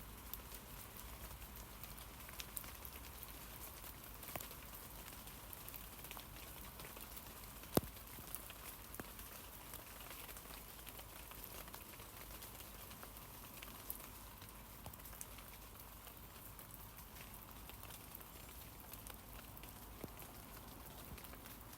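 Rain falling on tree leaves: a steady soft patter made of many scattered drips, with one sharper, louder drop a little before the middle.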